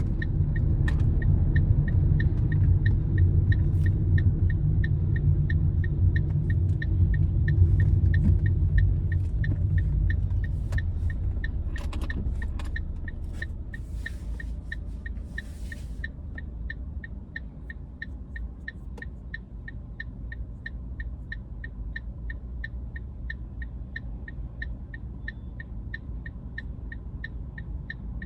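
Car in motion heard from inside: steady road and engine rumble that fades away as the car slows, over about the middle of the stretch. Through it a turn-signal indicator ticks steadily, about twice a second.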